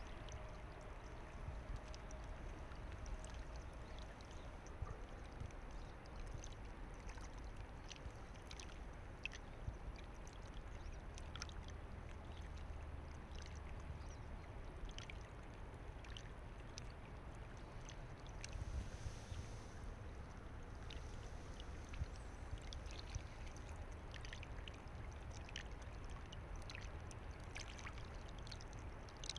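Faint, steady running river water, with scattered small clicks and splashes.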